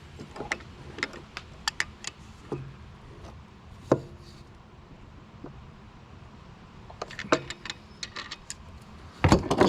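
Small metal clicks and taps of hand tools: a wrench being adjusted and fitted against a slotted socket on a carburetor choke nut. Scattered single clicks, a sharper one about four seconds in, a quick run of clicks a little after seven seconds, and a heavier thump near the end.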